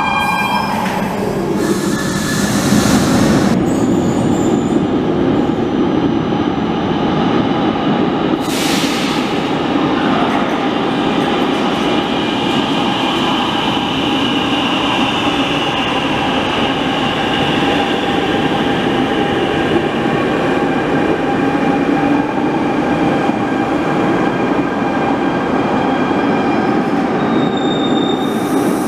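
Barcelona Metro trains running through an underground station: a steady rumble of wheels on rail with a motor whine and wheel squeal, as one train moves off and another slides along the platform and comes to a stand. Two short hisses sound in the first ten seconds.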